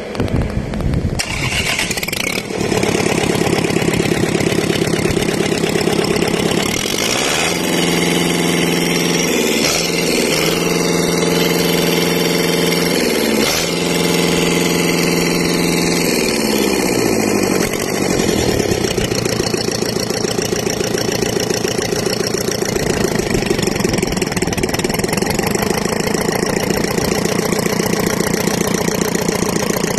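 Kubota four-cylinder diesel engine, just rebuilt with new piston rings, running on the bench. It fires unevenly and settles into steady running about two seconds in, then runs up to a higher steady speed with two brief dips. About halfway through it drops back to idle and idles steadily.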